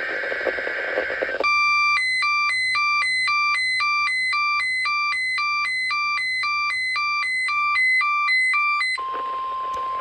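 Weather alert radio going off for a NOAA Weather Radio weekly test. The end of a buzzy SAME data burst over static gives way, about a second and a half in, to the receiver's electronic alarm beeping in two alternating pitches, a couple of times a second. Near the end the broadcast audio returns: static with a steady high tone.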